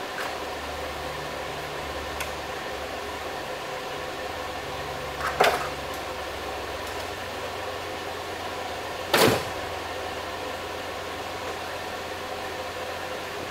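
Steady workshop hum, broken by two sharp knocks about four seconds apart from tools being handled on a wooden board, the first about five seconds in.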